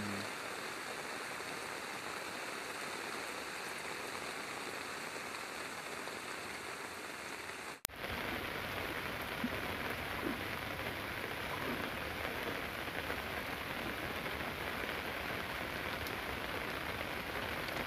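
Heavy rain falling in a steady hiss. It breaks off for an instant about eight seconds in and resumes a little louder and fuller.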